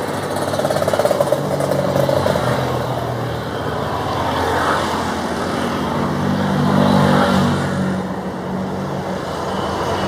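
Jet engines of a Boeing 737 MAX 8 airliner during its landing: a loud, steady noise with a low hum that swells and fades.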